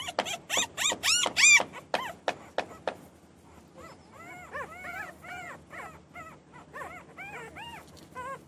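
Newborn puppies crying and whining: a run of loud, high-pitched cries over the first three seconds, then softer, rapid squeaky whimpers, several a second.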